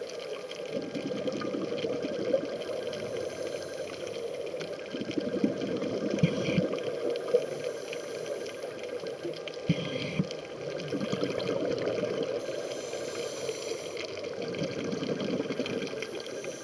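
Underwater sound heard through a camera housing on a scuba dive: the diver's regulator breathing, with exhaled bubbles rising in slow swells every few seconds. A few short knocks come from the camera being handled, one about six seconds in and one near the middle.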